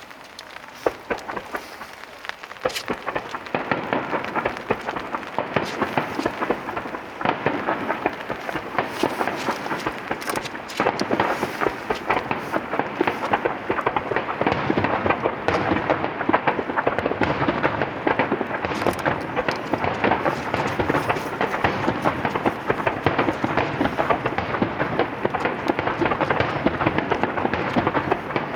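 Starmine fireworks barrage: many shells bursting in rapid, overlapping succession with booms and crackle, sparse at first and thickening into a dense continuous volley after about three seconds.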